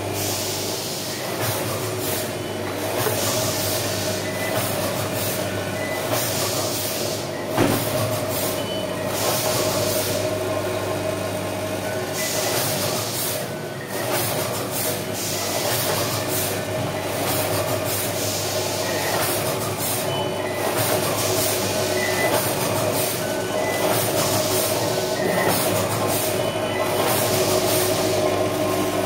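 Linear weigher for powder running: a steady electric hum from the vibratory feeder pans as they shake powder into the weigh buckets, with repeated short bursts of hiss and one sharp click about a third of the way through.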